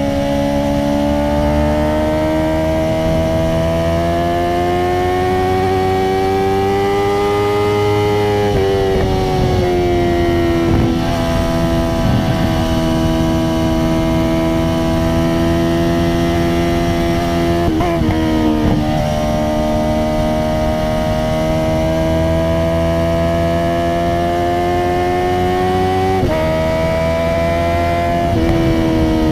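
Honda CBR650R's inline-four engine running loud through an Akrapovic titanium exhaust with no dB killer. The pitch climbs slowly under load, drops sharply about eight seconds in and again near the end, and stutters briefly midway.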